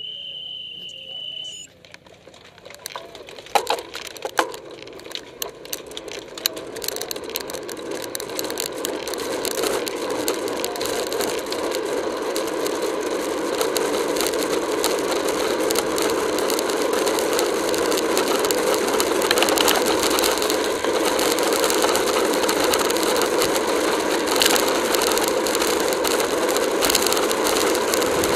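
Wind rushing over a bicycle-mounted camera's microphone in a pack of racing cyclists, growing steadily louder as the pack speeds up to around 25 mph. A steady high tone lasting under two seconds opens it, and scattered clicks and knocks come in the first few seconds.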